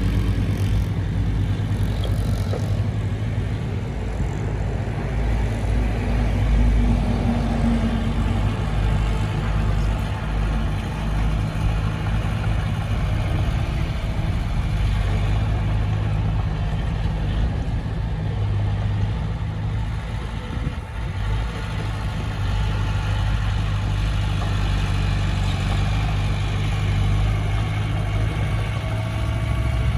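Heavy diesel engine of earthmoving equipment running steadily at a constant pitch, with a steady low engine note.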